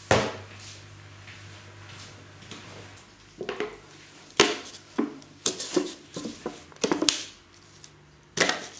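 Plastic parts of a baking shaker knocking and clicking as its clear beaker and black baking mould are handled and set down on a stainless steel worktop: a sharp knock at the start, then a string of irregular clatters and clicks about halfway in, and one more near the end.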